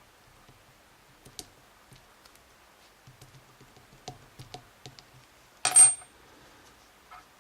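Small metal clicks from a pin-tumbler challenge lock being taken apart by hand, then a small metal piece drops onto a hard surface with a short clatter and a brief high ring, a little past three-quarters of the way in.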